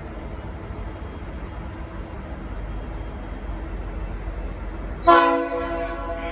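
A steady low rumble, then about five seconds in a diesel locomotive's Nathan P5 five-chime air horn sounds a sudden loud blast. Its several notes make one chord that starts sharply and eases slightly as it holds.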